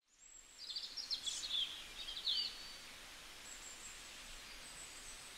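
Small birds chirping and trilling in quick bursts for the first couple of seconds, then thinner high whistled calls, over a faint steady hiss of outdoor ambience. The sound fades in from silence.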